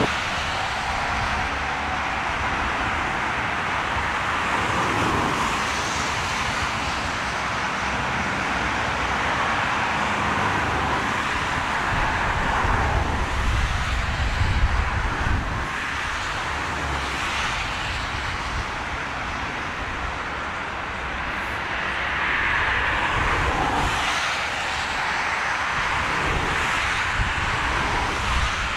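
Airbus A380's jet engines running with a steady rushing roar as the airliner comes in to land. A deeper rumble swells about halfway through.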